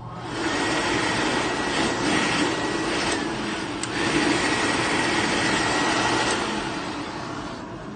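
Electric-Aire automatic hand dryer blowing hot air: the motor comes up about half a second in, then runs steadily with a high whine over the rush of air, and eases off near the end.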